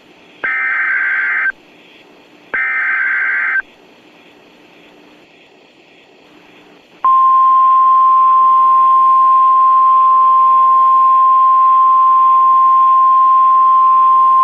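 NOAA Weather Radio Emergency Alert System signal. It opens with two short bursts of SAME header data tones, each about a second long, then a few seconds of quiet radio hiss. About 7 seconds in, the steady 1050 Hz warning alarm tone starts and holds, signalling that an alert message (here a tornado watch) is about to be read.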